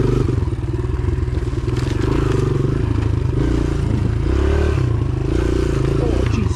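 Kawasaki KLX dirt bike's single-cylinder four-stroke engine running as it is ridden, its pitch rising and falling with the throttle.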